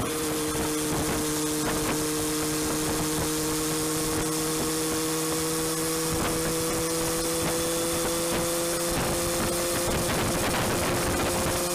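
Motorcycle engine running at a steady cruise, its pitch creeping up slightly, under a steady rush of wind and road noise.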